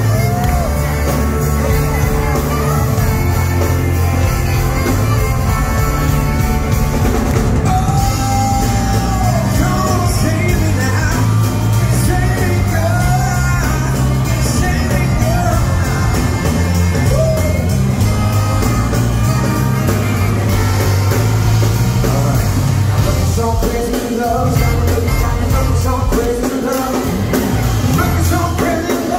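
Live band playing loudly through a hall PA: a male singer's sliding vocal lines over electric guitar, keyboards, a drum kit and a heavy stepping bass line.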